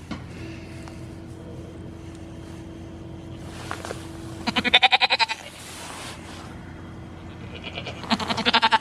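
Goat bleating twice at close range: a loud, quavering bleat about halfway through and another near the end.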